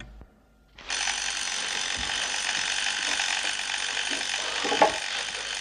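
Electric bell ringing continuously, starting about a second in: the signal that food has come through the hatch. A sharp knock sounds just before the end.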